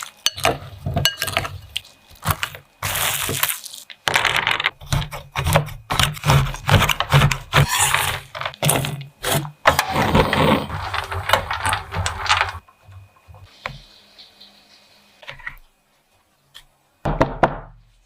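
Kitchen utensils and dishes clattering and knocking in quick, irregular runs. The clatter is busiest in the middle, drops away about two-thirds of the way through, and returns in a short burst near the end.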